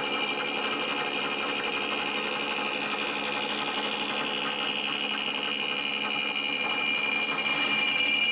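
Bridgeport milling machine's end mill side-cutting the end of 6061 aluminum stock at a fairly high spindle speed, the table hand-fed. The sound runs steadily, with a high ringing tone from the cut over the hum of the spindle.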